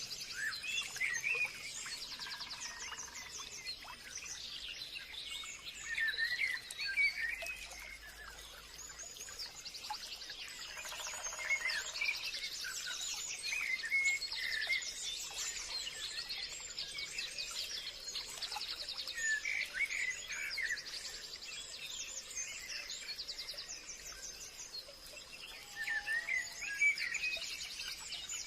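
Forest ambience: several birds chirping and calling in fast trills, over a faint steady high-pitched buzz.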